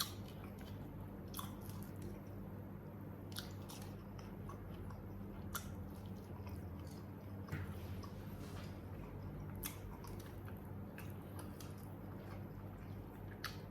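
Close-up chewing and biting of spicy smashed fried chicken (ayam geprek) and rice, with scattered sharp crunches and mouth clicks.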